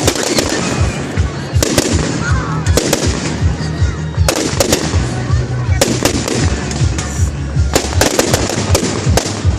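Fireworks display: aerial shells bursting in a fast series of sharp bangs, many in quick pairs, over loud music with a pulsing bass line.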